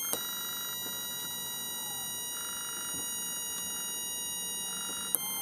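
A home-built 555-timer electronic doorbell circuit sounding one steady, high, buzzy electronic tone, with a brief shift in pitch near the end. The tone keeps going when it is supposed to have stopped: the circuit has a far longer delay than intended.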